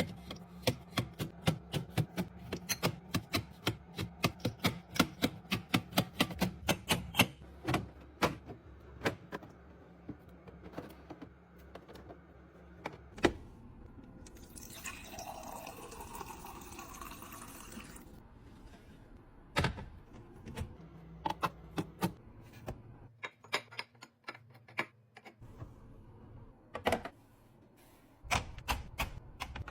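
Quick runs of light clicks and taps as plastic and glass containers are handled and set in place. About halfway through there are a few seconds of liquid pouring.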